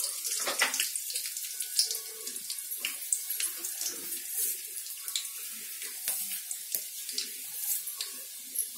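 Vadagam sizzling and crackling as it fries in hot oil in an aluminium kadai: a steady hiss with frequent small pops, the tempering for a fish kuzhambu.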